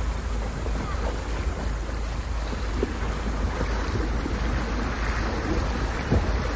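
A vehicle wading through a shallow river crossing: water swishing and splashing around the wheels over a steady low rumble, with some wind buffeting the microphone.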